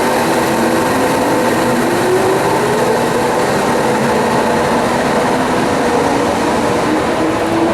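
Subway train running alongside the platform, the wheels and running gear making a steady rumble, with an electric motor whine that rises in pitch over the first few seconds as the train picks up speed.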